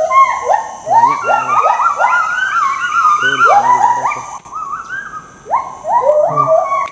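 Gibbons singing in chorus: several voices give overlapping whooping calls, each rising quickly in pitch and then holding, repeated a few times a second at different pitches. The calls thin out for a moment just past the middle.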